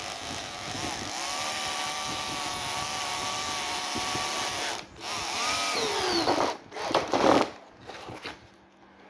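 Cordless drill working at a metal DIN rail on a mounting plate: a steady motor whine for a few seconds, a brief stop just before five seconds in, then several shorter, louder bursts with the motor pitch dropping under load, ending about seven and a half seconds in.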